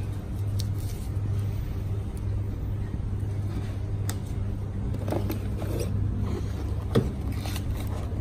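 Paper backing being peeled off a double-sided foam tape pad and cardboard packaging being handled: scattered rustles and light clicks, with one sharper knock about seven seconds in, over a steady low hum.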